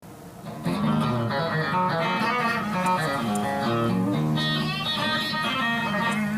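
Guitar music: plucked and strummed guitar notes, fading in over the first second and then playing steadily.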